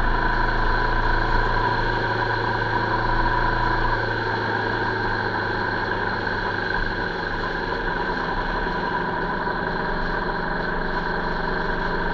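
Motorcycle engine running at a steady, even pitch while riding along the road, with a constant hum; it gets slightly quieter about four seconds in.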